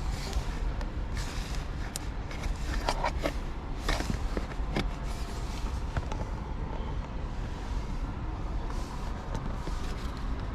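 Steady low rumble of a car, with several sharp clicks and knocks between about two and five seconds in.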